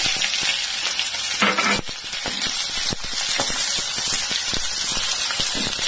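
Sliced onions sizzling in hot oil with mustard seeds in a kadhai: a loud, steady frying hiss with many small crackles and pops.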